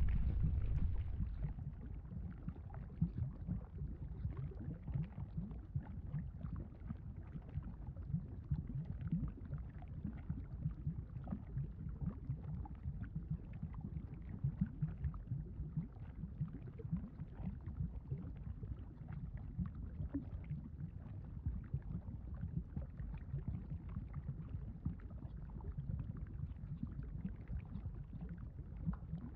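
Lava sound effect: a steady low rumble with a dense run of small bubbling, gurgling pops. A heavier deep rumble fades out in the first two seconds.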